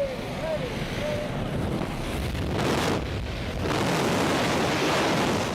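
Strong wind rushing over the microphone during a skydive, with a few short high-pitched sounds in the first second. The rush grows louder a little past halfway.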